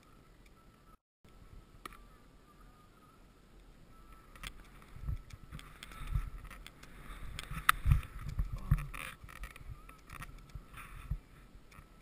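Skis scraping and hissing through heavy, wind-affected snow, with knocks carried through a helmet-mounted camera. It is quiet at first; from about four seconds in comes a run of irregular thumps and rushes of snow noise, the loudest thump about eight seconds in, easing off near the end.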